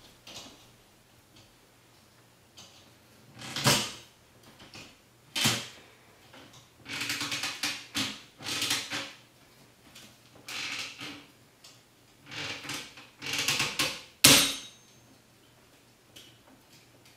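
Plastic marble-run toy parts being handled and snapped together: a series of clicks and rattles in separate bouts, ending with one sharp snap near the end.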